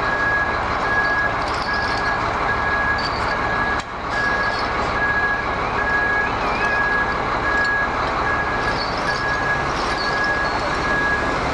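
A vehicle's reversing alarm beeping steadily, about once a second, over a running engine, with scattered light clinks of steel chain being handled.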